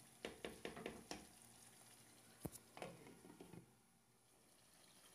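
Faint soft scrapes and squishes of a spatula stirring chunks of eggplant in a thick yogurt-and-spice curry in a pan, with a single sharp click about two and a half seconds in, then near silence.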